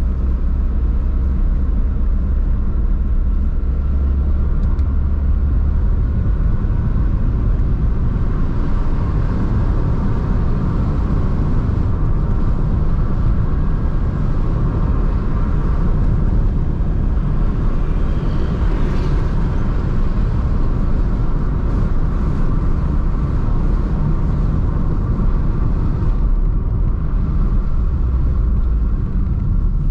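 Car driving on town streets: steady low rumble of engine and tyre noise.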